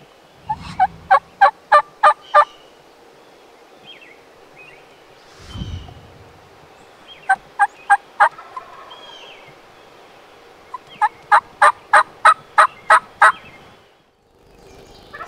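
Turkey yelping: three runs of loud, evenly spaced sharp notes, about three a second, with a low thump between the first two runs.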